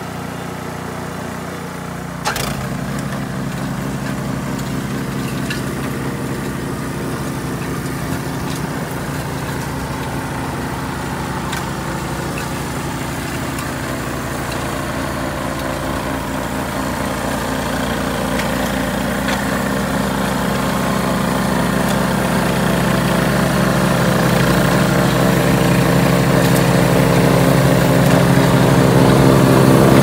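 Gasoline snowblower engine running steadily while clearing snow, growing louder as it comes closer through the second half. About two seconds in there is a sharp click and the engine note steps up.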